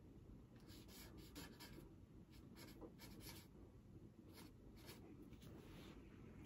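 Faint scratching of a pen writing in short, irregular strokes: merchandise being signed.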